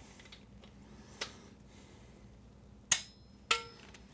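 A faint tick about a second in, then two sharp metallic clicks with a brief ring, about half a second apart, from a wrench working the cam chain tensioner bolts on a Milwaukee-Eight engine.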